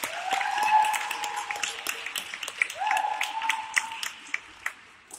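Audience applause: scattered hand claps, with two drawn-out calls from the crowd, dying away toward the end.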